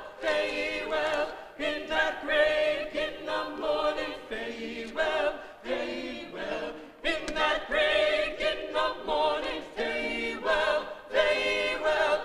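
Mixed church choir singing a spiritual unaccompanied, in phrases with audible vibrato.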